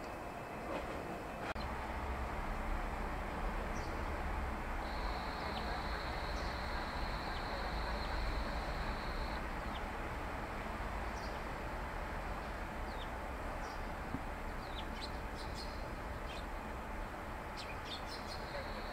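Eurasian tree sparrows giving short, scattered chirps that come more often near the end, over a steady background rumble. A steady high tone runs for about four seconds in the first half.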